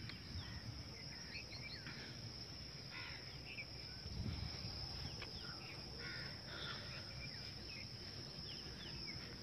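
Faint open-field ambience: a steady high insect drone, with scattered short bird chirps and calls over a low rumble.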